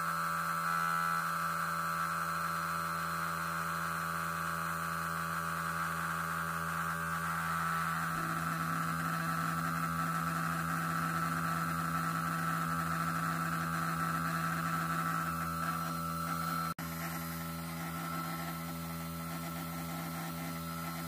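Electric motor of a spinning-magnet eddy-current heater running with a steady hum. About 17 s in the sound breaks off for an instant and then carries on a little quieter.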